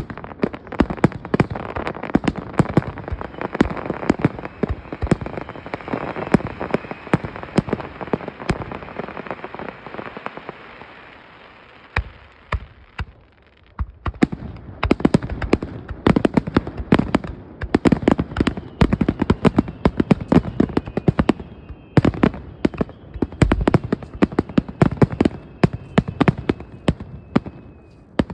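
Fireworks crackling, with rapid volleys of sharp pops. The pops die down about ten seconds in, and a second dense volley starts a few seconds later. A faint, slowly falling high whistle sounds under the later volley.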